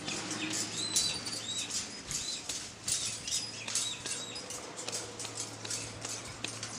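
Footsteps on the steel grating deck of a hanging footbridge: irregular light taps and rattles as people walk across.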